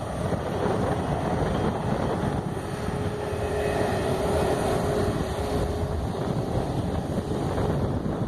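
Airplane landing: a steady rush of engine and airflow noise, with a faint held whine for a few seconds in the middle.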